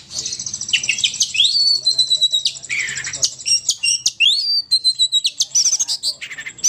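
Burung poci lure-call song: rapid, high, chattering chirps and trills, broken by rising whistled notes that climb and hold, once about a second and a half in and again past the middle.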